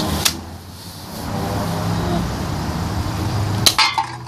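Wind rumbling on the microphone, with a click just after the start and one sharp snap about three and a half seconds in: a Nerf Falcon Fire blaster firing a foam dart.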